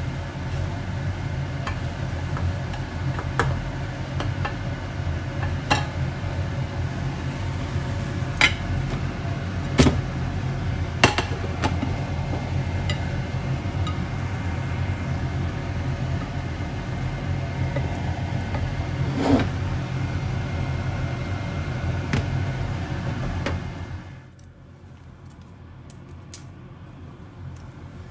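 A slotted turner clicks and scrapes against a frying pan and plate a few times as an okonomiyaki is lifted out and set down. Under it is a steady kitchen appliance hum with a hiss, which cuts off suddenly near the end.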